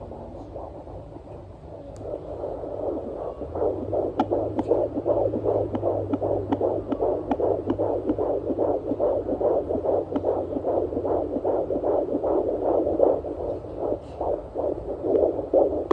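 Fetal heartbeat through a handheld fetal Doppler's speaker: rapid, regular pulses at about two and a half beats a second, faint at first and coming in loud about two seconds in as the probe picks it up again.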